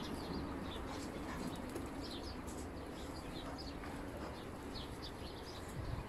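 Faint, scattered short chirps from birds in farm pens over a steady low background noise.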